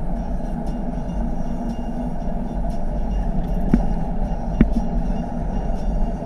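SUV driving at speed over a red brick road: a steady rumble of tyres, engine and wind, with a couple of sharp ticks about halfway through.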